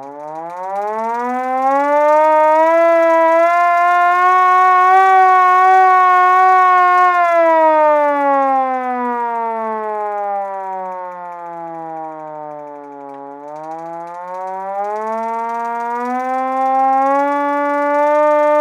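Old hand-cranked fire siren winding up to a steady wail in the first couple of seconds and holding for about five seconds. It then slowly winds down in pitch for several seconds and winds back up again near the end.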